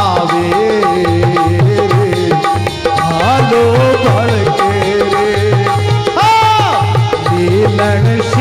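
Rajasthani devotional folk music: a harmonium playing a melody over a steady, repeating hand-drum rhythm.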